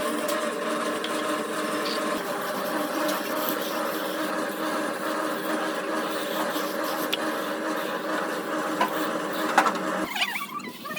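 A machine's motor running steadily at an even pitch, then cutting off abruptly near the end, followed by a few brief high squeaks.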